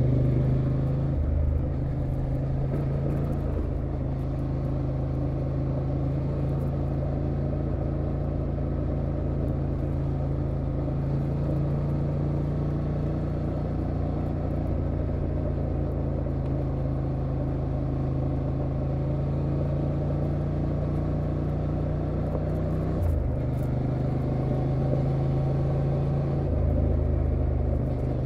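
Honda Transalp XL750's 755 cc parallel-twin engine running at a steady cruise on a gravel road. The engine note holds steady and dips briefly about 23 seconds in, then changes again a few seconds later.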